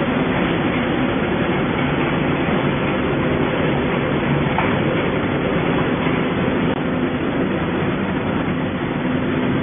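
Automatic cling-film heat-shrink packaging machine running steadily: a continuous mechanical hum and rush with a few faint steady tones underneath.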